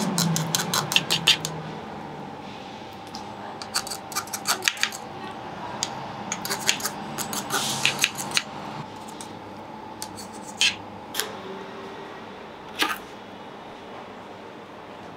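Steel knife blade scraping and clicking against the rim of a metal pan as it is run around the edge of raw minced-meat filling. The scrapes and clicks come in quick clusters, then thin out to a few single clicks in the second half.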